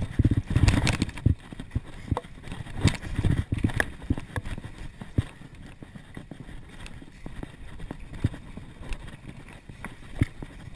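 Mountain bike ridden along a dirt singletrack: tyres rumbling over the trail, with frequent irregular clattering knocks and rattles from the bike as it crosses bumps and roots.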